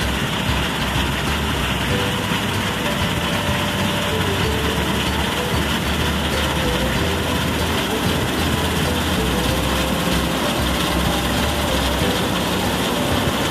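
Farm machinery engine running steadily during field work, with a low hum and a slowly wandering tone. Wind blows on the microphone throughout.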